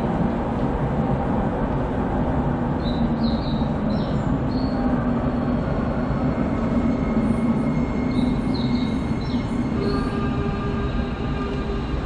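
Subway train pulling into an underground station behind platform screen doors: a steady rumble of wheels on rail with short high wheel squeals. A few steady tones come in near the end as it slows to a stop.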